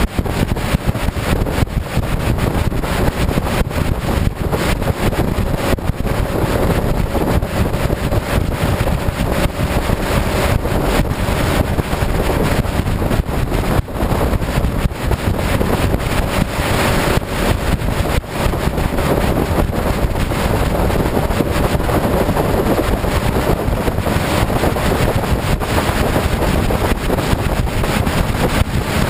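Steady wind buffeting on the microphone of a Honda CBR sportbike cruising at highway speed, over the motorcycle's engine and tyre noise, which come through as a faint steady hum.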